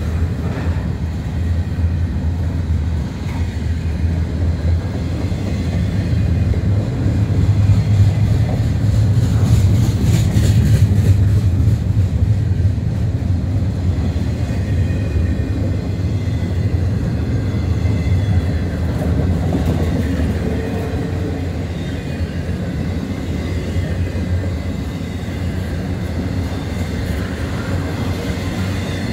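Intermodal freight train cars loaded with double-stack containers and trailers rolling past close by: a steady low rumble of steel wheels on the rails. It swells about a quarter of the way through and eases off in the second half.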